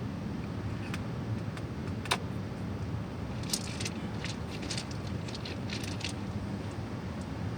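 Small metallic clicks and rattles from handling a .177 air rifle: one sharp click about two seconds in, then a quick run of light clicks for a couple of seconds, over a steady low hiss.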